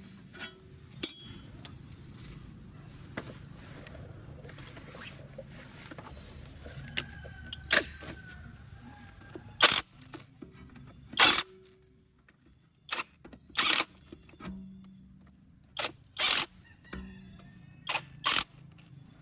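Sharp, irregular metal knocks and clanks of tools against tractor gearbox parts during disassembly, some in quick pairs, with brief faint ringing between them.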